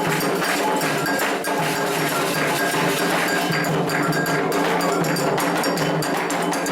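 Candomblé ritual percussion: metal agogô bell strikes over hand drums, keeping a steady, fast rhythm.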